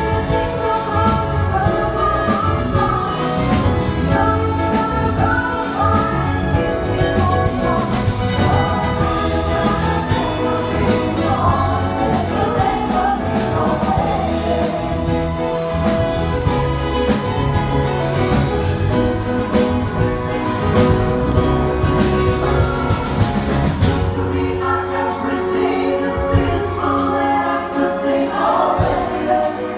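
Big band music: sustained horn chords over a bass and drum groove.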